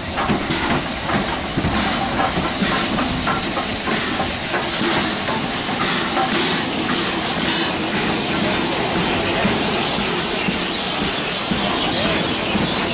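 Steam tank locomotive running into the platform past the camera with a steady loud hiss of steam, then its carriages rolling by. Some wheel clicks come over the rail joints, mostly in the first few seconds.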